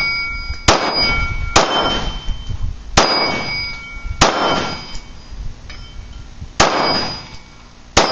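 Glock 19 Gen 4 9mm pistol firing six shots at an uneven pace, one to two and a half seconds apart. Most shots are followed by the ringing ping of a steel plate target being hit.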